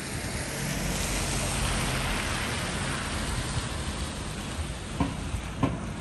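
Outdoor city ambience: a steady rushing noise that swells over the first few seconds and eases off, with a faint low hum under it. Two short knocks come near the end.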